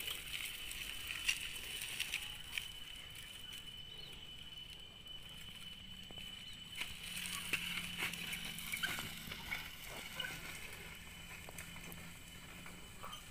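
A small children's bicycle clicking and rattling as it is pedalled over a rough road, with scattered light ticks. A steady high thin tone sounds throughout in the background.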